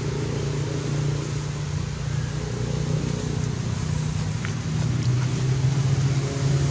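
A motor running steadily, a low even drone under a constant hiss, growing a little louder and slightly lower in pitch about two-thirds of the way through.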